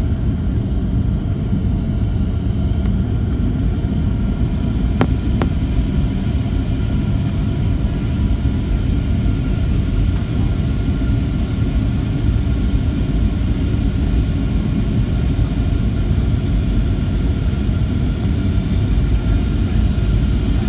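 Steady cabin noise of a Boeing 737-800 with CFM56-7B engines, heard from inside the passenger cabin: a constant low rumble with faint steady whining tones above it. A brief click sounds about five seconds in.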